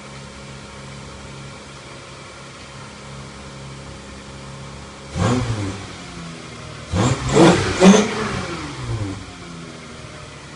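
1996 Toyota Avalon's 3.0-litre V6, fitted with a cold air intake, idling steadily, then blipped once about five seconds in and twice more in quick succession around seven and eight seconds, falling back to idle each time.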